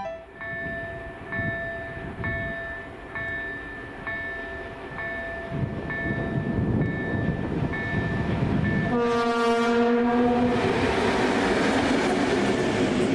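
Train horn sounding once, for about a second and a half, around nine seconds in, then the rising rumble of the train drawing near. Before the horn a ringing tone repeats about once a second.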